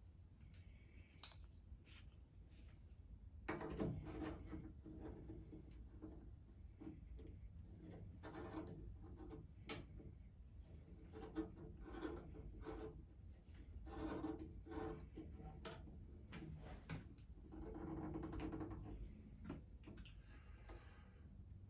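Faint handling noises: scattered clicks and taps with stretches of rubbing and scraping as parts are worked by hand.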